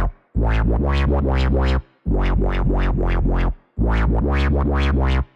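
Dubstep bass synth from Native Instruments Massive playing a triplet-rhythm phrase with heavy sub-bass. Square, saw and phase-modulated M-Torque oscillators run through a resonant low-pass filter that an LFO sweeps open and shut in quick wobbles. The phrase repeats about every second and three-quarters with short gaps between.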